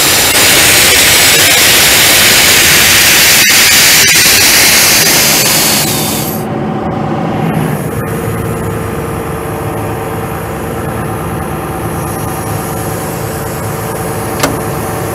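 Diesel screw compressor with a Cummins 6BT5.9 six-cylinder diesel running at high revs, compressed air rushing out through its discharge muffler. About six seconds in the rush of air cuts off, leaving the engine running more quietly and steadily. A single sharp click comes near the end as the control-panel door latch shuts.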